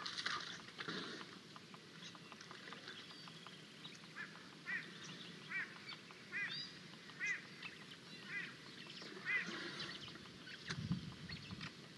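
A bird calling in a series of short honking notes, about one a second for several seconds, with a low thud near the end.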